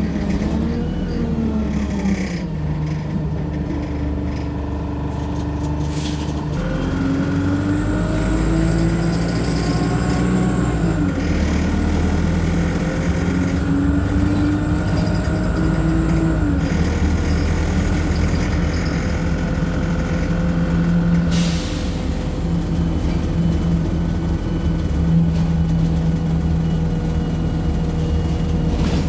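Interior of a Wright StreetLite single-deck bus on the move: the engine's note climbs and drops several times as it pulls through the gears, under a thin whine. A brief hiss of air comes about two-thirds of the way in.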